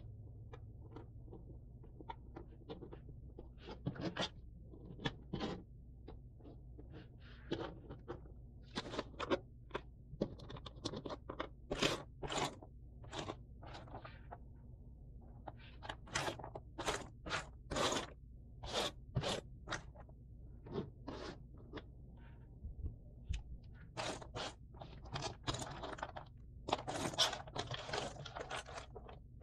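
Jigsaw puzzle pieces being handled on a table: irregular short clicks and scrapes as pieces are picked up, slid and set down, with a longer stretch of rustling and scraping near the end.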